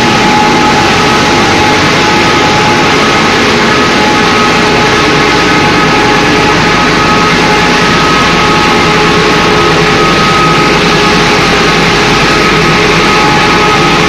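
Wood pellet mill and the surrounding pellet-line machinery running: a loud, steady mechanical din with a couple of steady whining tones over it.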